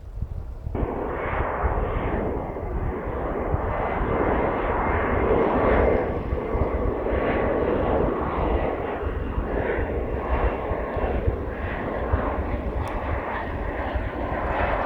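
Jet aircraft engine noise, a loud steady rush that starts abruptly just under a second in, peaks about six seconds in and then eases slightly.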